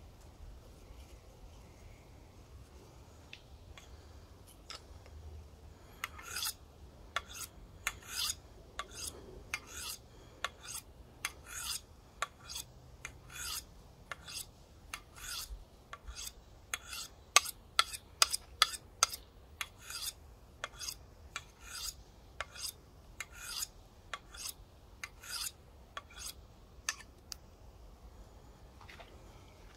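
Knife blade drawn in repeated strokes along a fine sharpening steel, each stroke a short metallic scrape, about one to two a second. The strokes start faint and are loudest around the middle.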